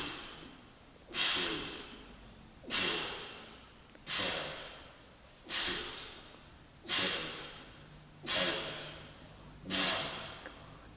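A man's forceful breaths in rhythm with bench-press reps under a 100 kg barbell, one about every second and a half, each starting sharply and fading out.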